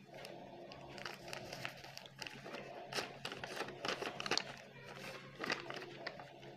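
A sheet of paper rustling and crinkling as it is folded and creased by hand, in irregular crackles with a few sharper ones through the middle.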